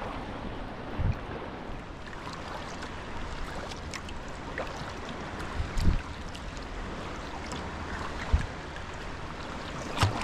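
Sea kayak under way: a steady rush of water along the hull as the paddle dips, with a few short low thumps a couple of seconds apart.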